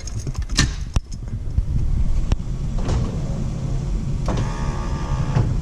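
Third-generation Firebird's electric power window motor running the door glass. It starts after a switch click about a second in and hums steadily, with a higher whine joining for about a second near the end. It is run from a freshly rebuilt window switch that now works.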